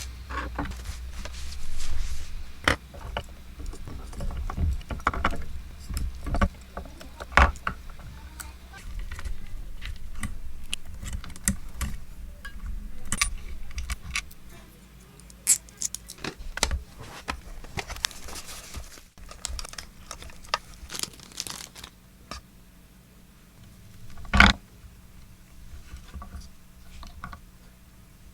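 Hands handling a Telecaster's hardware and tools during a pickup swap: scattered small clicks, metallic jingles and scrapes, busier in the first half, with one loud knock near the end.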